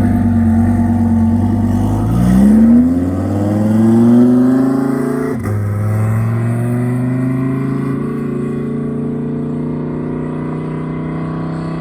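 A car engine accelerating away: its pitch climbs for about three seconds, drops suddenly at a gear change about five seconds in, then climbs slowly again and levels off as it fades a little.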